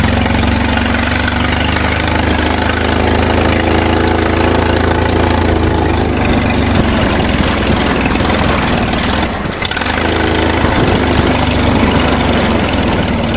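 Engine of a vehicle running steadily while driving slowly along a dirt track, with a brief dip in level about nine and a half seconds in.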